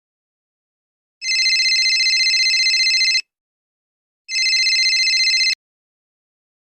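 Telephone ringing: two trilling rings, the second shorter and cut off abruptly.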